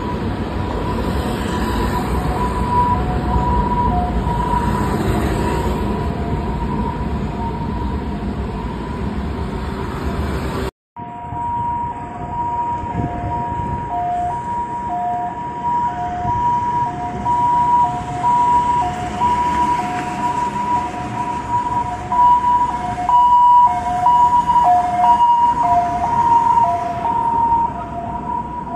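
Ambulance siren alternating between a high and a low note, the hi-lo two-tone wail, over heavy traffic rumble. After a brief cut about eleven seconds in, the same two-tone siren comes from a Volkswagen T6.1 ambulance pulling away.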